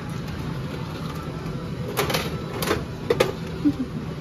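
Coin dial of a Bandai gashapon capsule-toy machine being cranked by hand, its mechanism giving a few sharp clicks and clunks about two to three seconds in as it turns to release a capsule.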